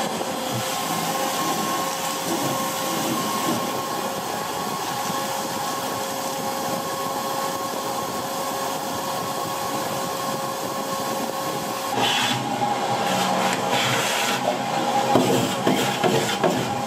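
Shop vacuum running steadily with a high motor whine, its hose sucking up spent sandblasting grit from the bare steel inside a boat hull. About twelve seconds in, the whine changes pitch and the sound grows louder and rougher, with scattered clicks.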